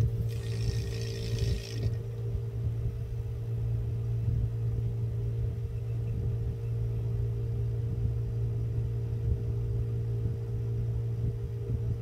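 Suction machine's motor running with a steady low hum while it draws water out of a printhead's ink chamber; a hiss of air and water through its nozzle stops about two seconds in.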